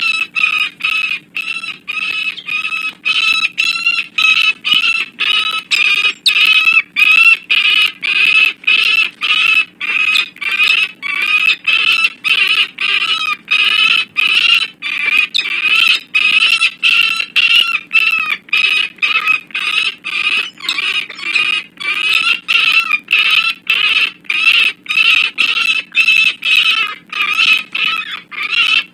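Peregrine falcon cacking, a loud run of short repeated calls at about two a second, without a break: the territorial alarm call given during a fight between male peregrines.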